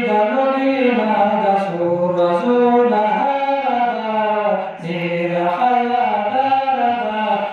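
A man chanting a Pashto devotional nazam solo and unaccompanied into a microphone, in long held, gliding notes. He takes a short breath a little under five seconds in.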